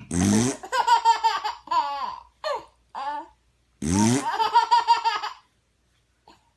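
A baby laughing in high-pitched, bouncing giggles, twice set off by a man's short, low fart-like noise: once at the start and again about four seconds in.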